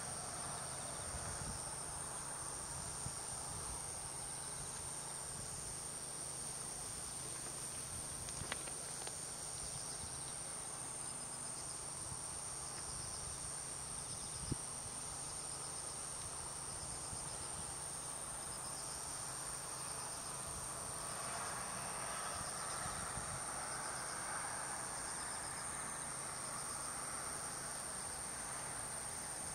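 Singing insects: a steady, high-pitched trill, with a quieter pulsing song beneath it. Two faint clicks, about a third and halfway through.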